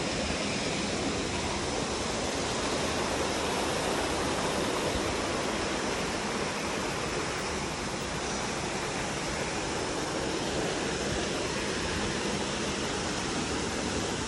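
Steady rush of a mountain stream's flowing water, an even unbroken noise with no change.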